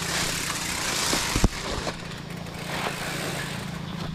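A small engine running steadily with a low hum, under a rushing hiss of riding noise. A sharp knock about one and a half seconds in is the loudest sound, after which the hiss drops off.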